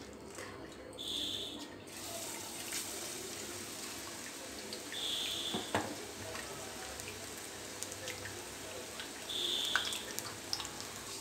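Onion pakodi batter sizzling as it deep-fries in hot oil. The hissing starts about two seconds in, with crackles and pops through it. A short high beep sounds three times.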